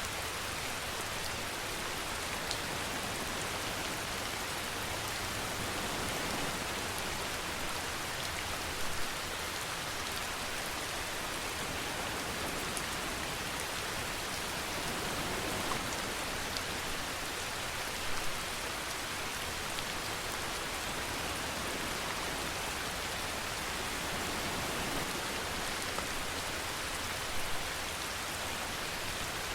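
Steady rainfall: an even, unbroken hiss of rain on surfaces, with a brief louder patter about every nine seconds.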